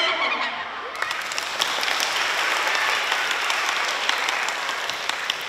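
Audience of schoolchildren applauding on cue in a large hall. The clapping swells about a second in and dies away near the end.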